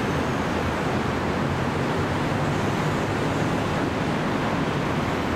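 Steady city background noise, mostly a continuous rush of road traffic, with no distinct events.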